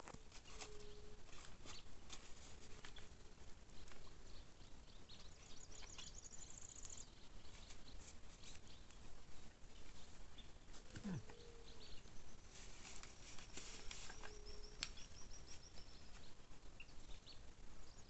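Birds chirping and trilling over a faint outdoor background, with small scattered clicks and rustles. About eleven seconds in, a single short sound glides downward in pitch.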